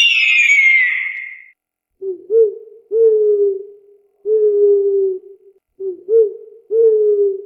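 A loud falling whistled call in the first second and a half, then a bird's low hooting coos: short notes and longer held notes, repeated several times.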